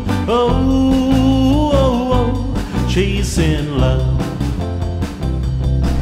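Background pop song: a sung melody over a steady beat.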